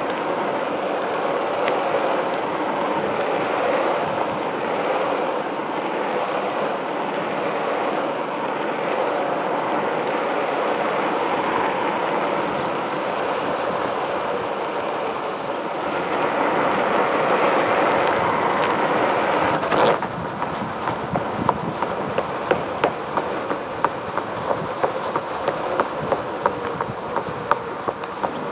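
Onewheel Pint electric board rolling over pavement: a steady rush of tyre noise. About two-thirds of the way in it turns a little quieter, and a regular run of sharp ticks, roughly two a second, sets in.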